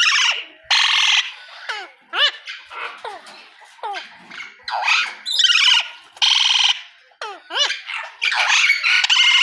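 Parrots squawking over and over: harsh, loud screeching calls coming roughly once a second, mixed with short whistles that slide down in pitch.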